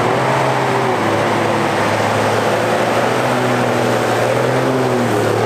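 First-generation Dodge Ram's 12-valve Cummins turbo-diesel inline-six running hard under load as the truck pulls through mud, blowing black smoke. A loud, steady engine drone that holds nearly the same pitch throughout.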